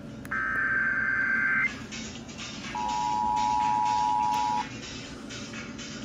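Emergency Alert System broadcast through a small FM radio's speaker, announcing a child abduction emergency (AMBER Alert). It opens with a burst of the shrill SAME header data tones lasting about a second and a half. About a second after that, the steady two-tone attention signal sounds for just under two seconds.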